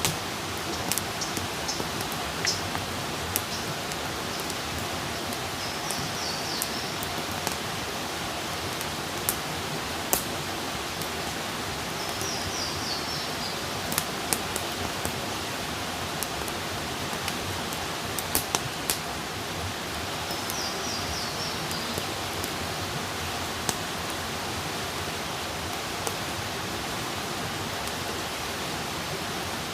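Outdoor wood campfire burning with a steady hiss and scattered sharp crackles and pops. A high chirping call repeats three times in the background.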